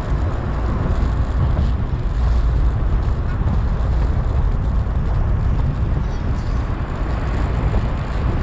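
Steady low rumble of a vehicle being driven: engine and road noise.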